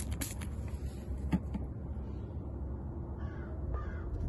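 Trigger spray bottle spritzing soapy water onto a tire tread a few times in the first second and a half, then a bird calling twice near the end, over a steady low rumble.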